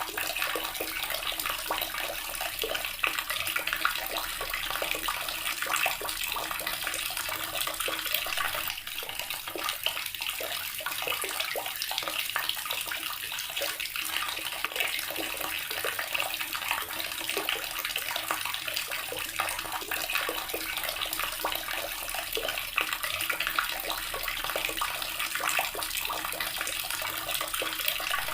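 A water tap running steadily, its stream making a constant splashing hiss with no pause.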